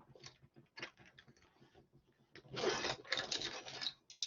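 Hands rummaging through a tool bag: a few light clicks of tools touching, then a longer stretch of rustling and clattering from about two and a half seconds in.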